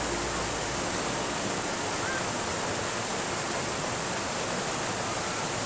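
Fast-flowing water rushing down a narrow concrete drainage ditch, a steady, even rush.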